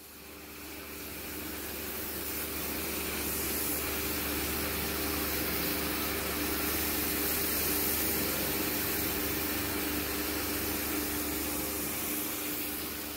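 Pressure washer running steadily, its motor and pump humming under the hiss of the water jet blasting moss and grime off paving slabs. The sound fades in over the first couple of seconds and cuts off abruptly at the end.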